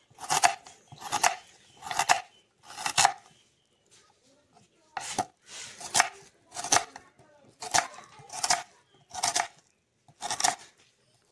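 Kitchen knife slicing a red onion on a wooden cutting board: about eleven short, sharp cuts in an even rhythm, a little under a second apart, with a pause of about a second and a half after the fourth.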